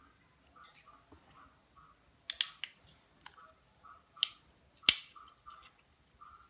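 Large red Victorinox Swiss Army knife being worked by hand, its blades and tools snapping open and shut on their springs with sharp metallic clicks: a pair a little over two seconds in, one about four seconds in and the loudest about five seconds in, among lighter clicks.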